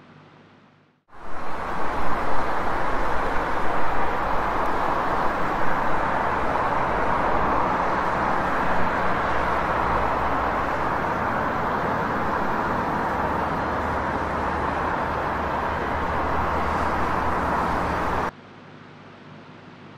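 A loud, steady rushing noise with a low rumble underneath. It cuts in suddenly about a second in and stops sharply near the end.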